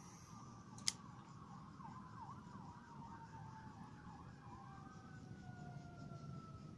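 Faint emergency-vehicle siren wailing, its pitch sliding slowly down, with a quick up-and-down yelp about two to three seconds in. A single sharp click about a second in.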